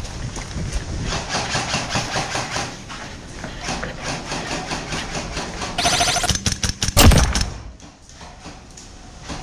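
Footsteps crunching over rubble and debris on a concrete floor, a dense run of short crackles, then a single loud bang about seven seconds in.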